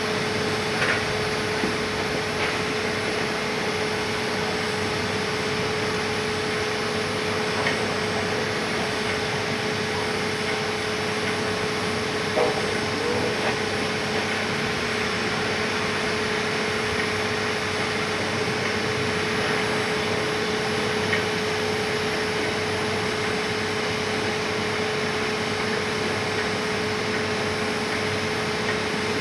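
Welding arc hissing steadily for the whole stretch, with a constant hum underneath and a few faint crackles.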